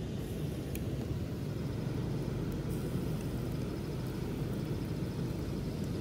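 A steady low rumble with no clear events in it, and a faint, fast high-pitched pulsing above it.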